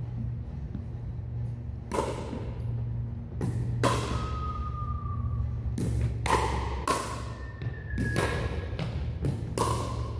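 Pickleball rally: about a dozen sharp pops of paddles striking the plastic ball and the ball bouncing on the hardwood gym floor, each ringing out in the large hall's echo. Two brief squeaks of shoes on the floor and a steady low hum run under them.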